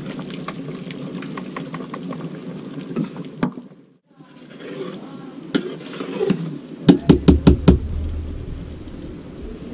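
Utensil knocks on a cooking pot: a quick run of about six sharp knocks some seven seconds in, over a steady noisy background with scattered clicks. The sound drops out briefly about four seconds in.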